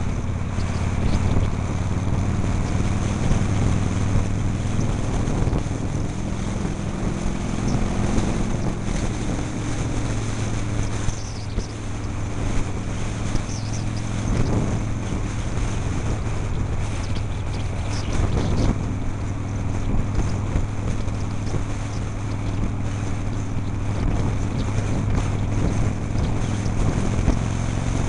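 Harley-Davidson Shovelhead V-twin engine running steadily at cruising speed, heard from the rider's helmet, with wind rushing over the microphone.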